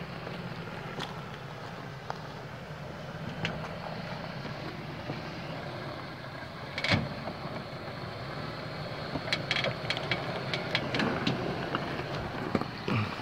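Lifted Toyota pickup's engine running steadily at low crawl speed over rocks. A single sharp knock comes about seven seconds in, and a run of short clicks and knocks follows about two seconds later as the tyres and undercarriage work over the rock.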